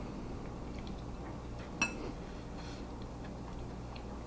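A metal fork stirring in a glass mixing bowl: soft scattered ticks and one sharp, ringing clink of fork on glass just under two seconds in, over a low steady hum.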